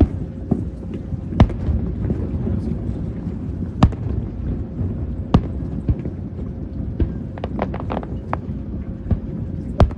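Aerial fireworks shells bursting: sharp bangs every second or two, with a quick run of smaller pops about seven to eight seconds in, over a steady low rumble.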